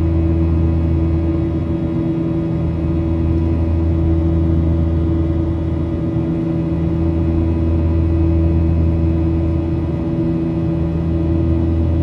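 Boeing 737-900ER's CFM56-7B26 turbofan engines running steadily in the climb, heard inside the cabin over the wing: a constant drone with a strong low hum and several steady tones.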